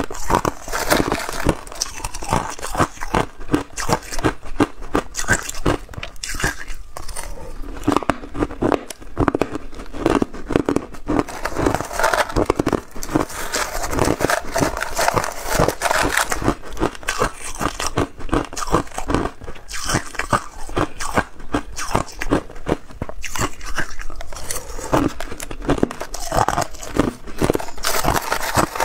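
Crushed clear ice crunched and chewed close to a clip-on microphone: a dense, continuous run of sharp cracks and crackles.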